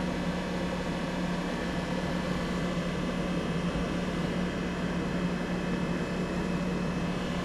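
Steady, even mechanical hum with a faint hiss, unchanging throughout; the excavator's engine is not yet running.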